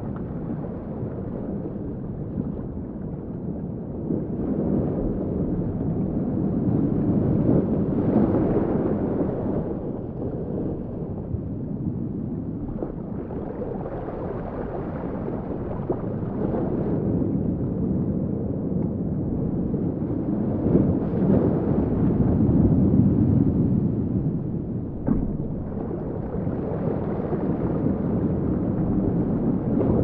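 Recreated underwater sea ambience: a muffled, low rumble of moving water that swells and fades in slow waves, with an occasional faint click.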